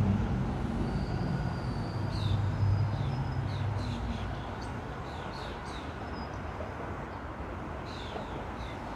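Low rumble of a subway train crossing the bridge overhead, fading away over the first few seconds. Birds chirp and whistle throughout, with short high calls repeated every second or so.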